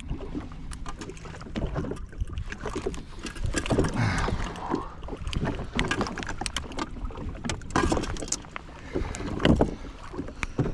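Water splashing and irregular knocks and clatter around a fishing jet ski as a hooked coho salmon is fought and landed, over a steady low rumble and wind on the microphone.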